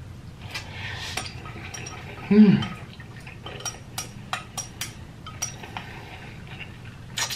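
Someone eating instant noodles with chopsticks from a bowl: slurping early on, then a string of sharp clicks of the chopsticks against the bowl. A short hummed 'mm' about two and a half seconds in is the loudest sound.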